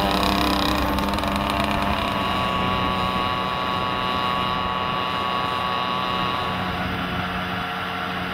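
Small two-stroke moped engine running steadily at speed, a continuous buzzing drone whose tone shifts slightly a couple of times.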